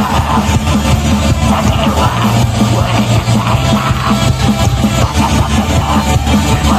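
Metal band playing live at full volume: distorted electric guitars, bass and drums in a dense wall of sound, the bass notes shifting about two seconds in.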